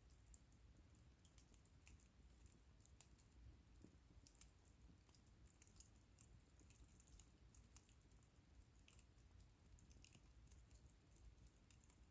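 Faint crackling of a wood bonfire, with small pops and snaps at irregular intervals over a low steady background.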